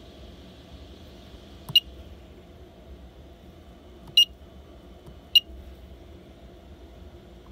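Touchscreen control panel giving three short, high beeps as it is tapped to change a setting, the last two about a second apart, over a steady low hum.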